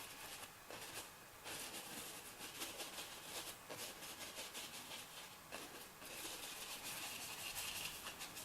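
Paintbrush scrubbing and dabbing paint onto a painting surface: faint runs of quick scratchy strokes with short pauses between them.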